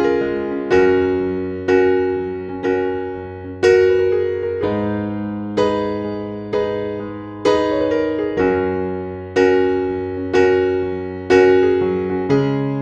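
Background music: a slow, gentle piano piece, soft notes struck about once a second over held bass notes.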